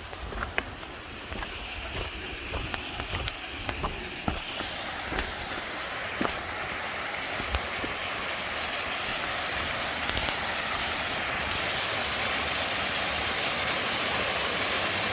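Rushing water of a waterfall, a steady hiss that grows gradually louder. Low wind rumble on the microphone and a few sharp clicks in the first seconds.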